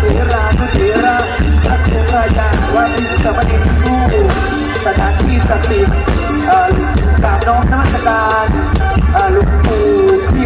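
Amplified live mor lam band playing a toei song: a bending melody over a heavy, steady bass-drum beat.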